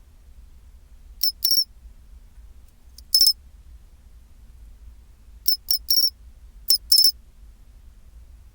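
Pine cricket (matsumushi, Xenogryllus marmoratus) singing its 'chin-chirorin' song: short, sharp, high chirps in groups of two or three, with pauses of a second or two between groups.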